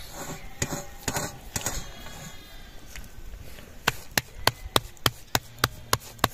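Knife chopping on a wooden board: a few loose knocks, then from about four seconds in a steady run of sharp strokes, about three a second.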